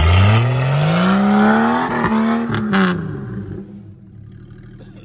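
SUV engine revved hard under load on a steep dirt climb, its pitch rising steadily for about two seconds, holding, then dropping away, with wheels spinning and throwing dirt. A few sharp knocks come around two to three seconds in.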